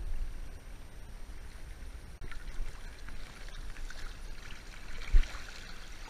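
River current rushing and splashing around a wading angler in shallow water, with a fish splashing in a landing net held in the current. One short thump about five seconds in.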